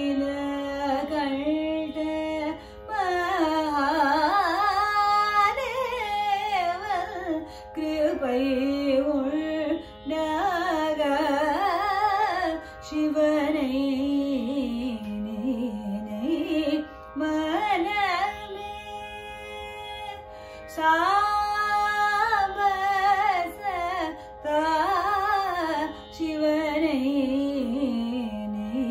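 A woman singing Carnatic vocal music, her melody sliding and wavering through ornamented turns in phrases broken by short breaths, over a steady drone.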